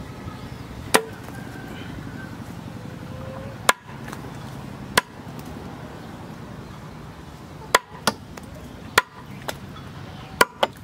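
A small handmade steel cleaver chopping through a green stick and striking the wooden plank beneath. About nine sharp chops come at uneven intervals, a few of them in quick pairs near the end.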